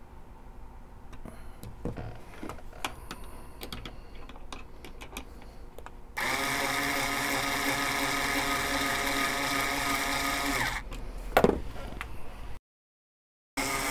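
Small clicks of handling on a Hornady case trimmer, then about six seconds in a power drill starts spinning the trimmer's shaft while a neck-turning cutter shaves a brass case neck. It runs steadily, stops with a falling whine about eleven seconds in, cuts out briefly, and runs again near the end.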